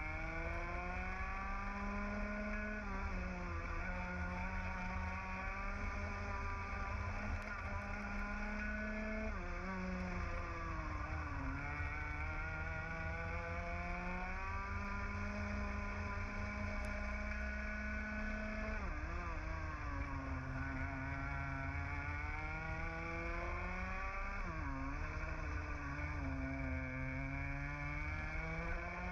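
Onboard sound of a 125cc TAG two-stroke kart engine at racing speed. It climbs in pitch through each straight and drops sharply when the driver lifts for corners, about four times, over a low wind rumble.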